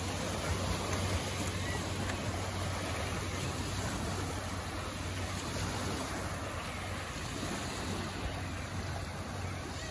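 Small lake waves lapping on a pebble shore, an even wash of water noise with a steady low hum underneath.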